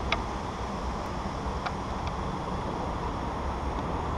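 Steady hiss and low rumble of wind on a helmet-mounted GoPro's microphone, with a few faint clicks.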